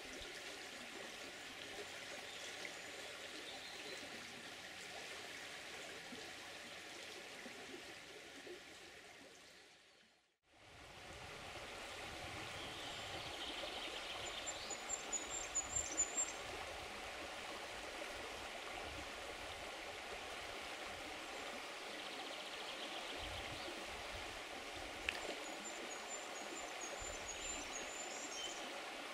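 A small river running over gravel riffles: a steady rush of water. About a third of the way through it fades out completely and comes straight back in.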